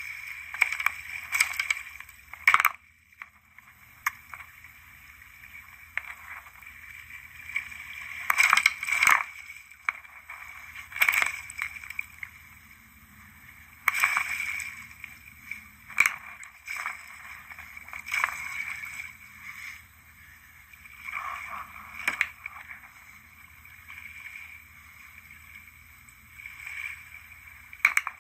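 Hammerhead shark thrashing at the surface right beside a kayak: bursts of splashing and sloshing water every few seconds, with several sharp knocks among them.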